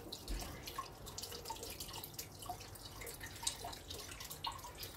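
Faint, irregular dripping of liquid, a few small drops a second.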